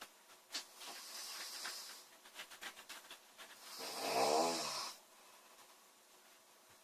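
A girl snoring in her sleep: a breathy intake of air and a few soft clicks, then one loud, pitched snore lasting about a second, about four seconds in.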